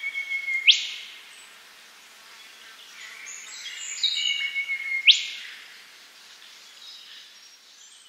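Australian golden whistler singing: two phrases, each a run of clear whistled notes ending in a loud, sharply rising whip-crack.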